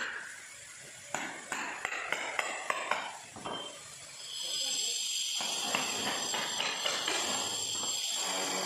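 Hammer striking a steel chisel driven under a granite floor tile to lift it: a quick run of about eight sharp metallic strikes over two seconds, starting about a second in. From about four and a half seconds in, a steady high hiss takes over.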